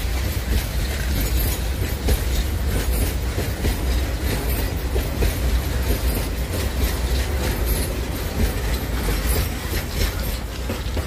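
Loaded coal wagons of a freight train rolling past: a steady heavy rumble with wheels clicking over the rail joints, easing off near the end as the last wagons go by.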